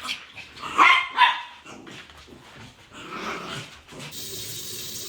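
A dog barking, with two loud barks about a second in and softer sounds after them. A steady hiss starts near the end.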